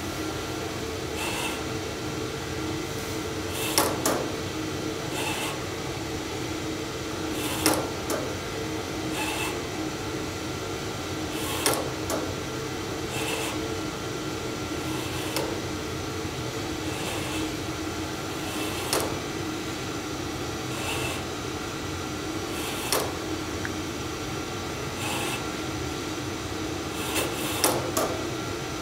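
Quanser ball-and-beam rig running: a steel ball rolls back and forth along the metal beam with a steady rasp, over the whir of the geared servo motor tilting the beam. Short bursts come about every two seconds and sharp knocks roughly every four. The ball keeps swinging without settling: an undamped closed-loop oscillation under integral control.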